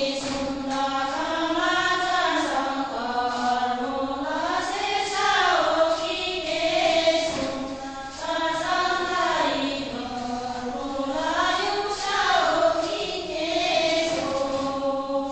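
A group of women singing a slow song together in unison, the traditional song of the Sherpa shyapto line dance. Long held notes rise and fall in slow, smooth glides.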